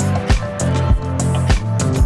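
Background music with a steady beat: a bass line and regular drum hits.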